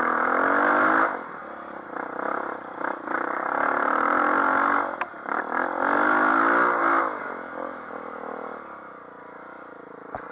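Dirt bike engine revving under throttle in three loud bursts, its pitch rising, and dropping back to quieter running between them.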